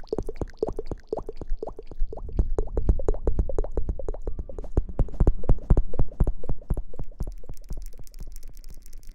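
Rapid wet squelching and plopping close to the microphone, several pops a second, like hair being lathered during a wash. The sound is loudest in the middle and fades off near the end.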